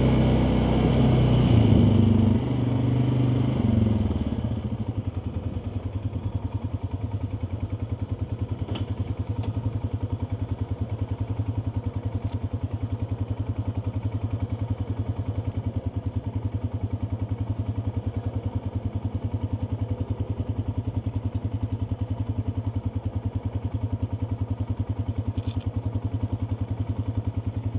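ATV engine running at higher revs, then slowing about four seconds in and settling into a steady idle with an even pulsing beat.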